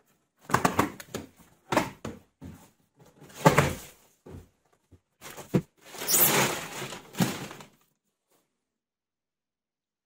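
Unpacking sounds: a cardboard box being slit open with a utility knife and its flaps handled, a series of scrapes and knocks, then plastic packing film rustling for about two seconds; the sound stops abruptly near the end.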